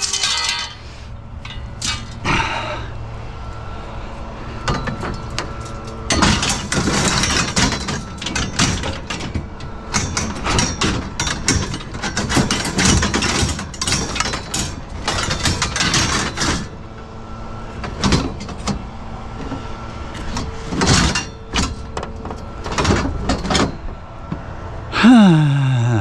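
Wire shelving and metal rails clattering and clanking against a pickup bed full of scrap metal as they are shoved in: a dense run of rapid metal knocks through the middle, then scattered clanks. Near the end a short ringing tone falls steeply in pitch.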